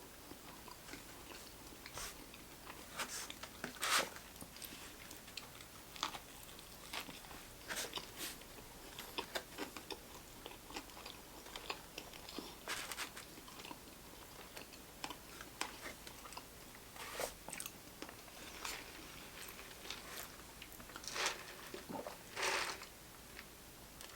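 Close-up chewing and biting into a crispy fried chicken sandwich: irregular crisp crunches and wet mouth sounds, with louder bites about 4 seconds in, around 13 seconds and twice near the end.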